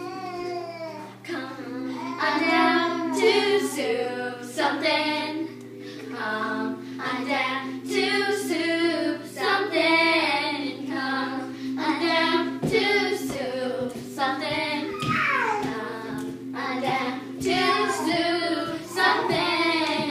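A group of children singing a song together in phrases, with steady held music tones underneath.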